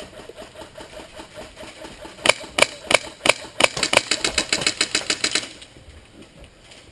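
Airsoft guns firing fully automatic: a fast, even rattle of shots, with a run of louder, sharper shots from about two seconds in that stops abruptly about five and a half seconds in.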